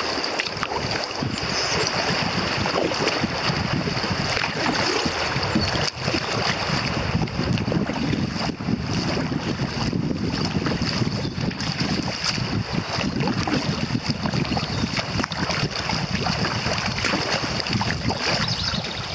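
River water rushing and lapping against a kayak's hull on a rippling current, with wind buffeting the microphone and a steady high-pitched hiss underneath.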